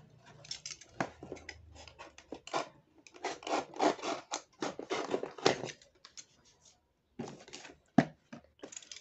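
Snap-off utility knife slicing through the cardboard of a detergent box: irregular bursts of scratchy cutting strokes with a few sharp clicks, and a short pause about two-thirds through.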